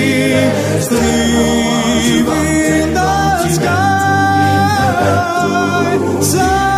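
Background music: a song with sung vocals holding long notes, some with vibrato, over a steady low accompaniment.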